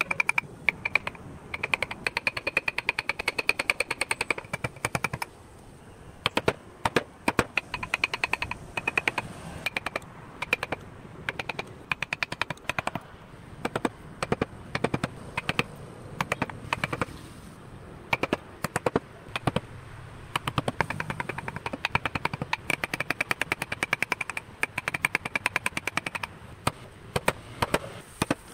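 Steel carving chisels and gouges tapped into Fujian cypress wood in quick runs of sharp taps, several a second, with short pauses between runs as the small grille and badge details are cut.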